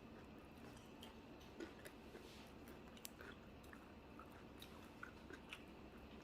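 Faint chewing with scattered small mouth clicks, someone eating a cheesesteak egg roll, over a steady low hum.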